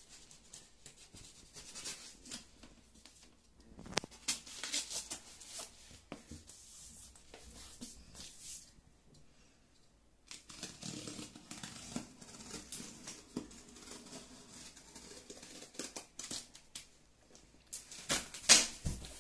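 A knife cutting and scraping through the packing tape and cardboard of a shipping box, with bouts of tearing and rustling packaging, a sharp knock about four seconds in and the loudest sharp sounds near the end.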